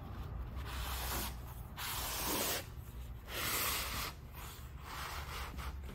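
Cloth headliner being pushed along a thin metal bow as the rod slides through its sewn-in loop, the fabric swishing against the rod in several separate pushes of about a second each.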